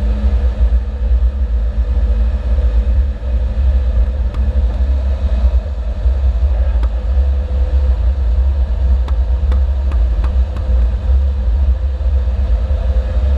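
Car driving at a steady pace, a constant low engine and road rumble, with a few faint clicks about two-thirds of the way through.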